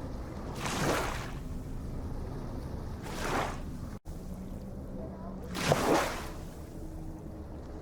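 Ocean waves breaking and washing in over a steady low rumble of surf, three surges rising and falling about two and a half seconds apart. The sound cuts out for an instant near the middle.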